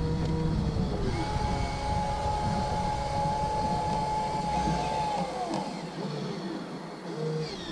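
A model sailboat's sail winch motor whining steadily for about four seconds as the sails swing across, its pitch falling away as it stops, with a shorter whine near the end. Underneath, wind buffets the microphone over the splash of choppy water on the hull.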